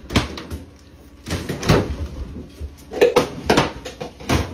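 Refrigerator being rummaged and handled roughly: clunks and knocks of its doors and contents. There are about five sharp bangs spread through, with scraping and rustling between them.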